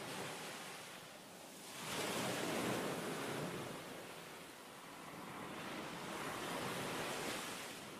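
Ocean surf: waves breaking and washing up a beach, a steady rush of water that swells loudest about two seconds in, ebbs, then swells again near the end.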